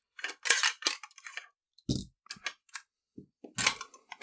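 Small hard tools being handled on a work mat: a series of clicks and rattles of metal and plastic parts, with a duller knock about two seconds in as something is set down, then more clicking near the end.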